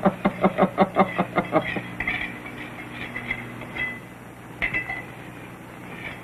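Steel mason's trowel tapping a brick into its mortar bed: a quick run of about a dozen sharp taps in the first two seconds, then fainter clinks and scrapes of the trowel on brick and mortar.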